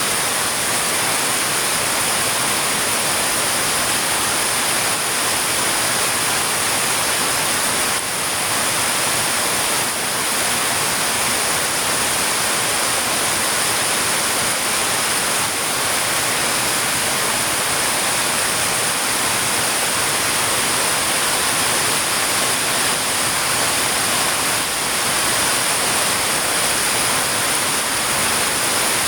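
Heavy rain falling steadily: a dense, unbroken hiss with no separate drops or thunder.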